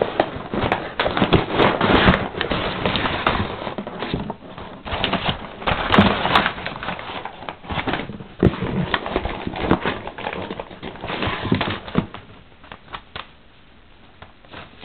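Packaging and items being rummaged through in an opened shipping box: crinkling, rustling and sharp clicks and knocks, busy for most of the stretch and dying down near the end.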